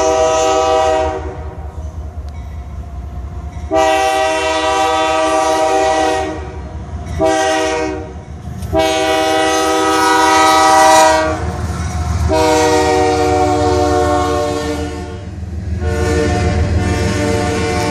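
Diesel locomotive air horn sounding a multi-note chord in a grade-crossing pattern of long, long, short, long blasts, followed by two more long blasts. Underneath runs the low rumble of the approaching GE diesel locomotives and their train.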